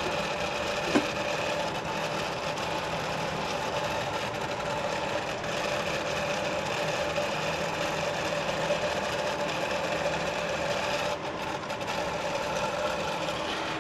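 A steady machine hum with a few held tones, with one short click about a second in.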